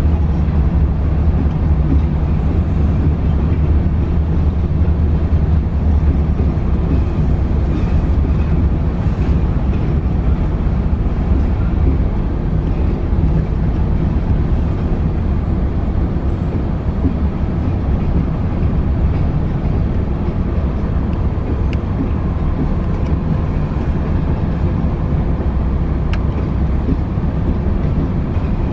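Freight cars of a passing train (tank cars, boxcars and covered hopper cars) rolling along the track in a steady low rumble, heard from inside a car, with a few faint ticks.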